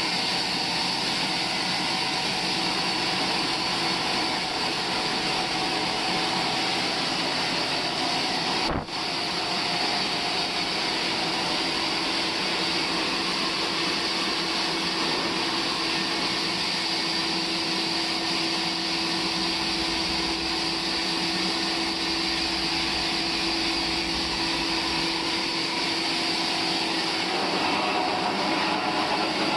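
Sawmill machinery running steadily, a continuous mechanical drone with a held whine through it, dipping briefly about nine seconds in.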